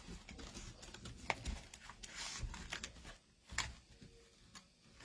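Starched cotton fabric strips and wired ribbon rustling as they are handled and looped over the wooden dowels of a bow maker, with two sharp clicks, one a little over a second in and one past halfway.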